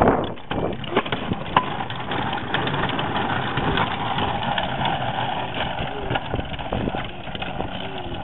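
Plastic wheels of a red child's wagon rumbling and rattling as it is pulled along a concrete sidewalk, with a loud jolt right at the start.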